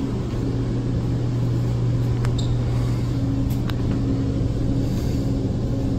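A steady low hum, with a few faint clicks about two and three and a half seconds in.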